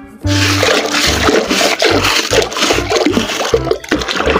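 Water splashing and sloshing, with pebbles clattering, as a hand digs through wet gravel in a plastic toy dump truck standing in shallow water.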